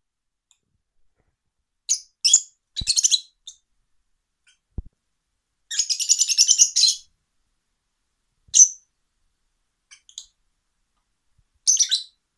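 Rosy-faced lovebirds giving short high chirps in scattered bursts, with a longer run of rapid chattering around the middle.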